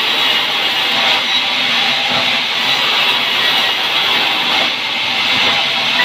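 Vertical band sawmill cutting a pine log, a steady, loud noise of the blade running through the wood.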